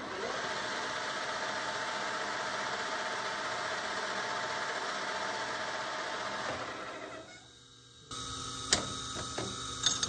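MSC 14x40 gap bed engine lathe running, its spindle and gears making a steady whine. About two thirds of the way in the spindle is shut off and the machine winds down to a stop. About a second later another steady mechanical sound starts, with a few sharp clicks.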